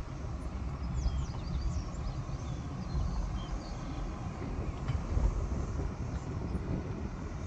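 Low, steady road rumble of a pickup truck driving slowly, heard from the cab. A few short high chirps come about a second in.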